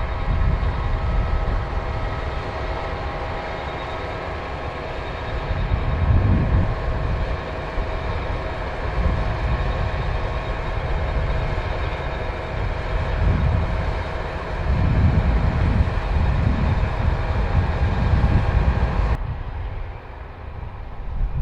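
Combine harvester running while harvesting barley: a steady machine hum with several fixed tones over a low rumble that swells and fades. About nineteen seconds in the sound changes abruptly and the higher tones drop away.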